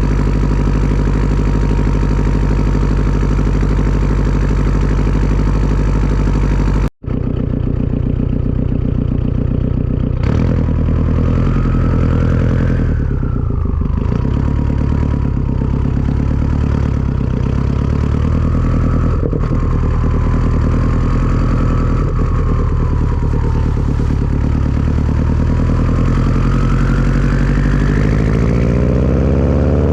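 Turbocharged Subaru flat-four engine running through a Tomei turbo-back exhaust, with a thin turbo whistle over the engine note. The whistle rises and falls with the revs, and near the end it climbs steeply as the engine revs up. The sound cuts out for a split second about a quarter of the way in.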